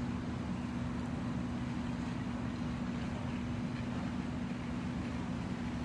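Fire apparatus engines running steadily, a constant low hum with no change in pitch.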